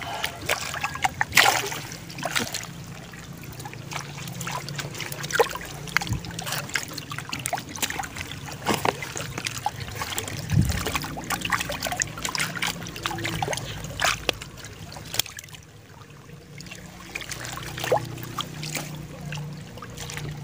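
Shallow pond water splashing and dripping as fish are netted and scooped out with a hand scoop net, with many short, irregular splashes and drips.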